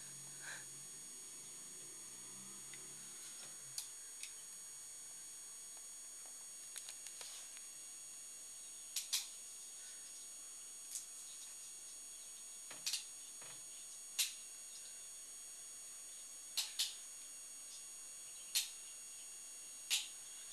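A faint, steady high-pitched whine with short sharp clicks, single or in quick pairs, about a dozen over the stretch, the loudest about fourteen seconds in.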